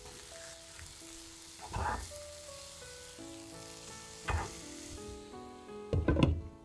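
Cabbage and egg patties sizzling in oil in a nonstick frying pan, with a spatula knocking and scraping against the pan a few times, the loudest knocks near the end.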